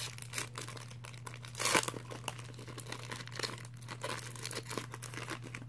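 Crinkling and rustling of trading-card packaging and cards being handled, with many small clicks and a louder crinkling tear a little under two seconds in. A low steady hum runs underneath.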